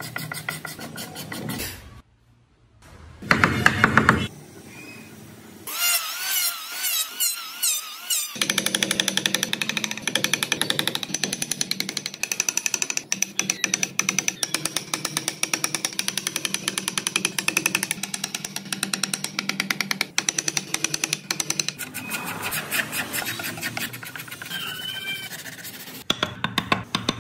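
A woodworking tool striking wood in a rapid, regular series of sharp taps, several a second, as the carving is worked. Near the start there is a short loud burst, then a wavering whine.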